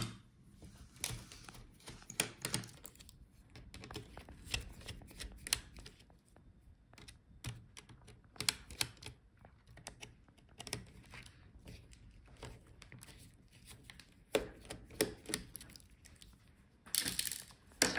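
Faint, irregular clicks and light scrapes of a small precision screwdriver taking the screws out of a laptop touchpad's metal bracket. Near the end there is a longer, louder scraping rustle.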